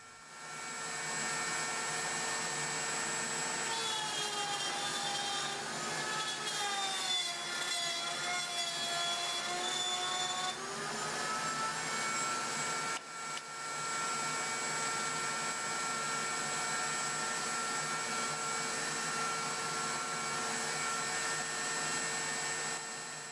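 Table-mounted router running at speed with a steady whine. About four seconds in, its pitch sags and wavers as the bit cuts through the wood on a 1/8-inch-deeper pass, then climbs back to full speed about ten seconds in.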